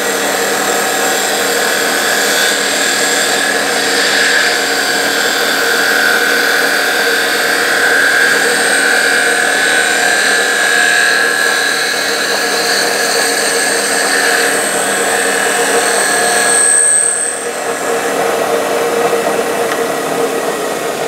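CNC wood lathe running: the electric motor hums steadily while the cutter turns a spinning wooden spindle, with a wavering high whine over it. About three-quarters of the way through, the high whine stops abruptly and the sound drops, leaving the steady motor hum.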